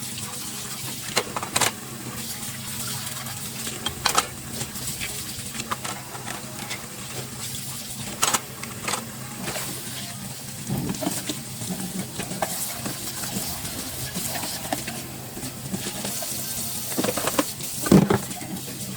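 Kitchen cleanup sounds: scattered clinks and knocks of dishes and utensils being handled, over a steady low hum. The sharpest knocks come near the end.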